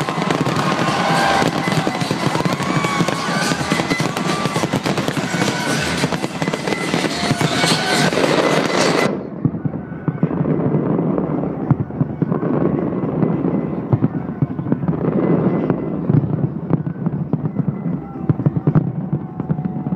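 A big fireworks display going off in rapid, dense volleys of bangs and crackle, with its music soundtrack and crowd voices underneath. About halfway through, the sound turns suddenly duller and more muffled.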